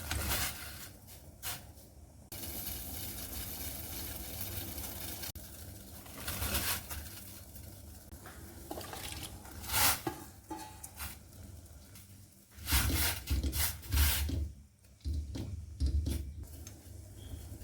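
Kitchen handling sounds: scraping and rubbing, and short knocks and clatters of dishes and containers being moved. About two seconds in, a steady hiss starts and runs for about three seconds.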